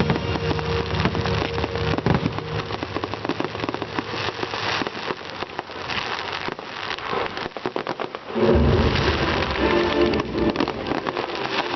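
Dense crackling of firework effects, a rain-like patter of many small bursts, over the display's music soundtrack, whose low notes swell back in about eight seconds in.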